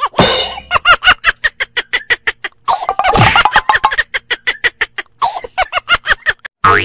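Comedy sound effect of rapid chicken clucking, a quick run of short pitched clucks at about five a second.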